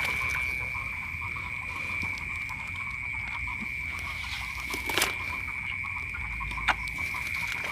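Night chorus of frogs in a flooded rice paddy: a steady, unbroken high-pitched trilling, with two sharp clicks about five seconds in and again near the end.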